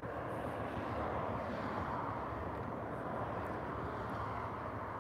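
A passing vehicle: a steady rushing noise that swells in the first second and holds.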